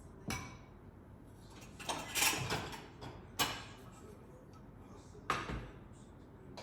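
Kitchen handling noises: four or five separate knocks and clatters, one short cluster of them about two seconds in, like cupboard doors, drawers or cookware being moved about.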